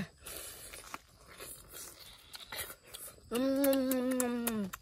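Faint clicks and crunchy chewing noises of someone eating, then a long hummed 'mmm' from a voice, held steady and falling off at its end.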